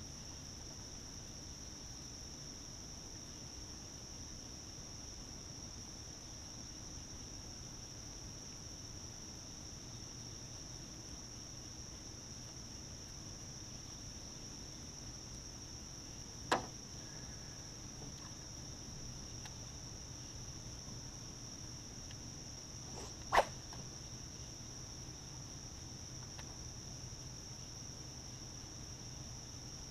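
Steady high-pitched insect chorus, crickets or katydids, from the wooded shore. Two sharp clicks stand out over it, a little past the middle and again about seven seconds later.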